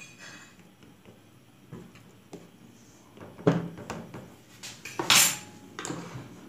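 A metal fork pricking pizza dough pressed into a metal pan, its tines clicking now and then against the pan. A sharp knock comes about three and a half seconds in, and a louder short metal scrape about five seconds in.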